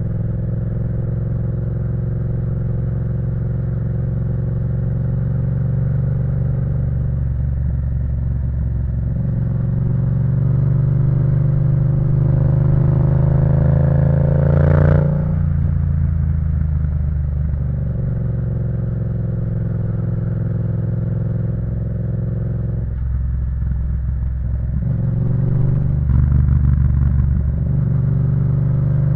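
Yamaha MT-07's 689 cc parallel-twin engine through a full Akrapovic exhaust system while riding. The revs climb to a peak about halfway through, then break off suddenly and settle lower; the note dips once more near the end and picks up again.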